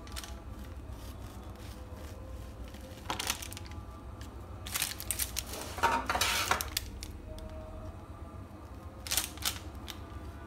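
Serrated bread knife sawing through a baked blondie slab and scraping on the parchment paper beneath it, in a few short scratchy bursts, the longest and loudest about halfway through, over a low steady hum.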